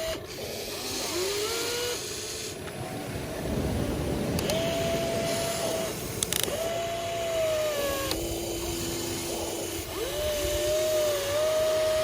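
Small electric motors of a radio-controlled toy excavator whining in short runs. Each run bends up in pitch as it starts and then holds steady for a second or two, over a rough, noisy background.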